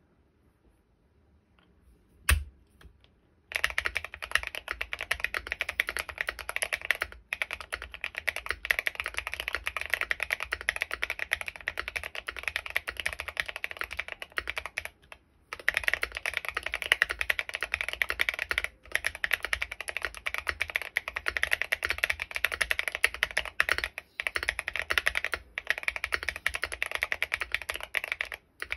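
Typing on a Bakeneko65 mechanical keyboard with lubed Gateron Azure Dragon tactile switches and SA-profile keycaps. A single keystroke about two seconds in, then fast continuous typing from about three and a half seconds, broken by a few brief pauses.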